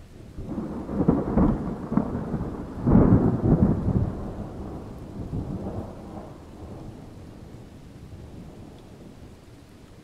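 A thunderclap: crackling peaks about a second in, the loudest crack about three seconds in, then a long rolling rumble that slowly fades away.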